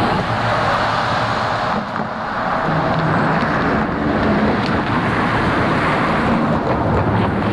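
Steady road traffic noise: a continuous wash of passing vehicles.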